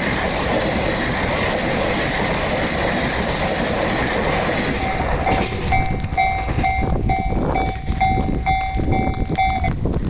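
A limited express train passing over a level crossing with loud rail noise that fades about halfway through. The crossing's warning bell then rings out clearly in a steady ding-ding, about two and a half strokes a second, and stops near the end.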